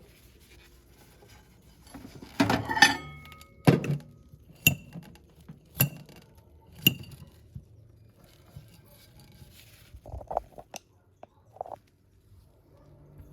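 Dishware clinking as potatoes on a plate are checked for doneness: a short scraping clatter about two seconds in, then four sharp clinks about a second apart with a brief ring, and a few soft knocks near the end.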